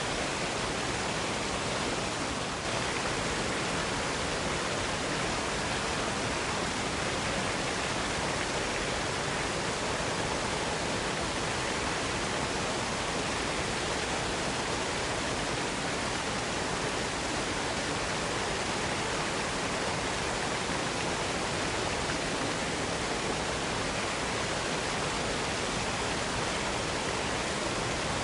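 Waterfall rushing: a steady, even hiss of falling water with no breaks or other sounds.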